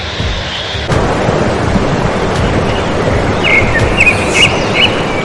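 Steady rushing roar of a waterfall pouring down a rock face, which turns louder and fuller about a second in. A few short high chirps come through it in the second half.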